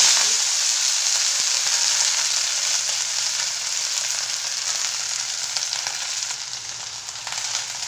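Freshly washed fenugreek (methi) leaves sizzling in hot oil in a steel kadhai, with a dense hiss that is loudest at the start and eases off slowly.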